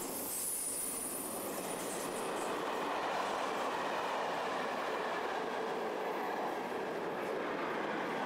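Passenger train coaches rolling past close by, a steady rolling rumble of wheels on rail, with a thin high wheel squeal in the first two seconds.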